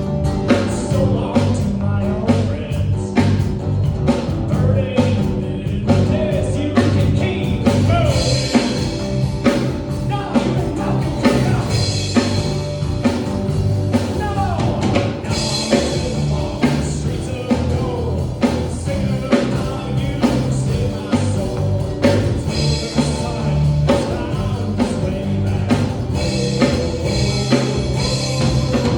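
Live worship band playing a rock-style song with drum kit and bass, with some singing over it.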